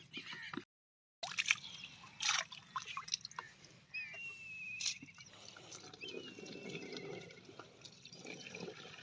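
Water trickling and sloshing, with scattered sharp clicks and a few faint high chirps. The sound briefly cuts out completely near the start.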